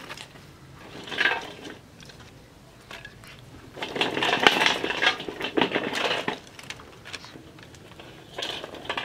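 Dry sticks clattering and scraping against a metal bowl as they are pulled out by hand, with a longer, louder spell of rattling in the middle and shorter ones near the start and the end.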